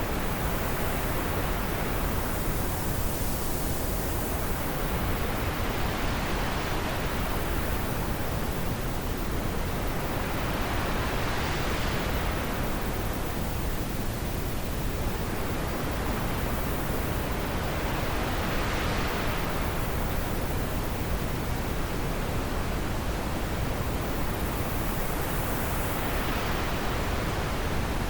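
Steady rushing wind noise with no gusts or breaks, whose pitch slowly swells up and down about every seven to eight seconds.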